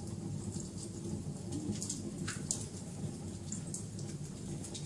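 Wood fire crackling: scattered sharp pops and snaps over a steady low rumble, the loudest pop about halfway through.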